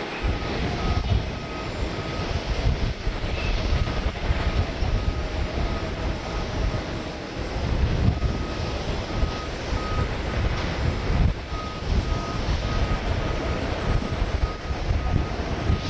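Distant jet-engine rumble from a Boeing 767 moving along the runway, with uneven low buffeting. Over it, a vehicle's reversing alarm beeps steadily, about two to three short high pips a second, fading out in the middle and returning.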